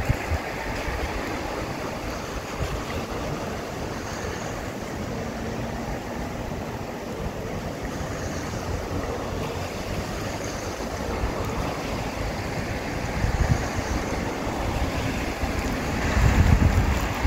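Wind buffeting the microphone over a steady outdoor hiss, with stronger gusts about thirteen and sixteen seconds in.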